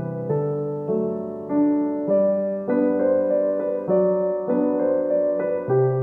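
Background piano music: a slow, gentle melody of single notes and chords, a new note struck about every half second.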